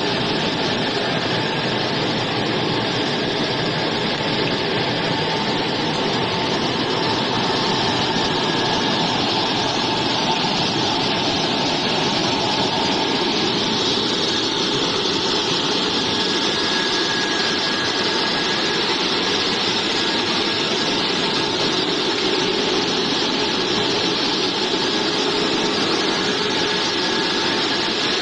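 Potato chip production line machinery running steadily: motors and mesh conveyor belts giving a continuous dense noise with faint steady hum tones, unchanging throughout.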